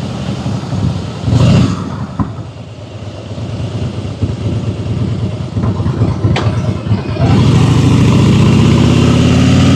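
Harley-Davidson Fat Boy's V-twin engine running under way, with a short loud surge about a second and a half in. From about seven seconds it is opened up, and the engine note climbs steadily as the bike accelerates.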